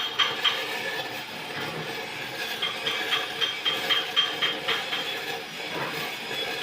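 Stick welding arc of a 2.5 mm E6011 electrode crackling on a pipe root pass, with a regular pulse about two to three times a second as the rod is whipped along the joint.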